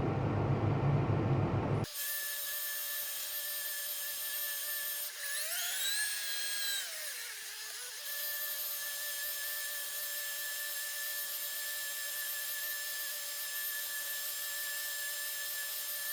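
A low engine rumble for about two seconds, then an abrupt change to a steady high-pitched mechanical whine made of several tones. The whine swoops up and back down for a couple of seconds around the middle.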